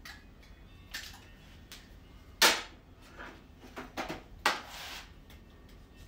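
Sharp clicks and snaps of a hand tool working on the end of a 14/3 electrical cable, about half a dozen at irregular intervals, the loudest about two and a half seconds in, with a short rasp about four and a half seconds in.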